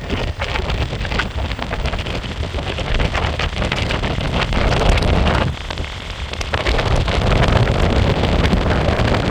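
Electric skateboard riding at speed: wind buffeting the microphone over the rumble of honeycomb wheels on pavement, with scattered ticks and clicks from the road surface. The wind and rumble ease for about a second past the middle, then build again.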